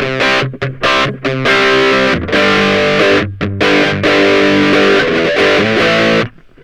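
Ibanez GAX30 electric guitar played through stacked overdrive pedals, heavily distorted: a run of short chord stabs with brief gaps, then one long held chord that stops suddenly near the end.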